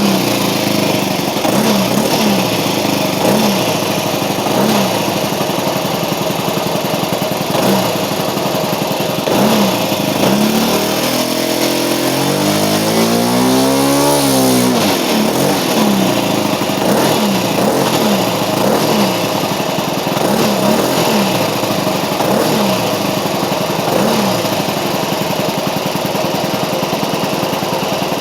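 OS FS-91 Surpass II four-stroke glow engine on a model airplane running hard with its two-blade propeller. About ten seconds in it drops in pitch, then revs up and back down over a few seconds before settling again.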